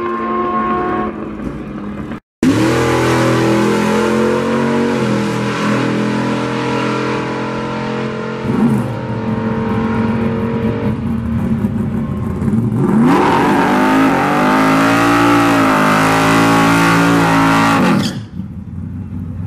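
Drag-racing engines running and revving, heard in several short clips with abrupt cuts between them. The loudest stretch, near the end, is a race car's engine revved up and down several times, and it stops suddenly.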